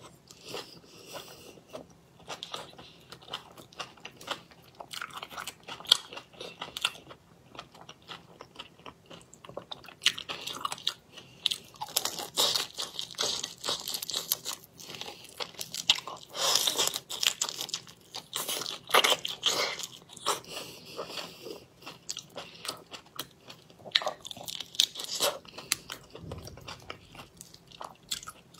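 Close-miked biting, crunching and chewing of raw soy-and-chili-marinated prawns, shells and all. Quick, irregular crunches, busiest through the middle.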